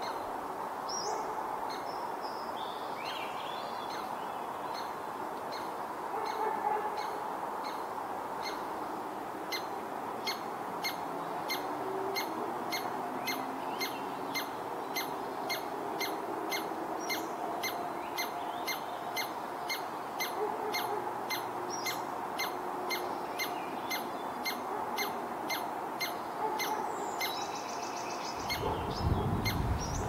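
Birds chirping outdoors, with a steady run of short ticking calls, two or three a second, through most of it. Wind buffets the microphone near the end.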